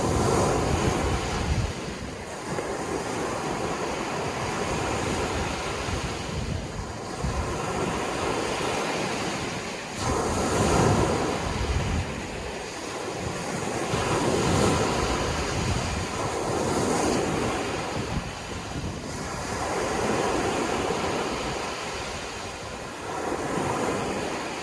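Sea waves breaking and washing in, the surf swelling and easing every few seconds, with low wind rumble on the microphone.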